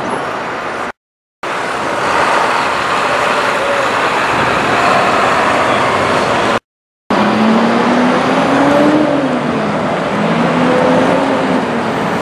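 City street traffic noise: a steady rush of passing cars and trucks, broken twice by brief silent gaps. In the last few seconds a low engine note rises and falls in pitch.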